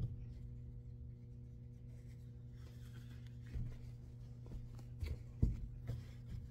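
Soft rustling and handling of clothes being sorted into pairs, with a few short dull thumps in the second half, over a steady low hum.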